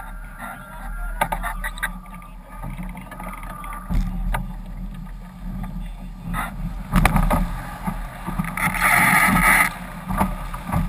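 Wind buffeting and water rushing past a camera mounted on a sailing foiler at speed, with spray knocking on the housing. Near the end comes a loud hiss of spray lasting about a second.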